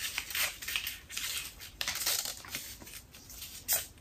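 Construction paper being folded in half and creased by hand: irregular crinkling and rustling, with one louder rustle near the end.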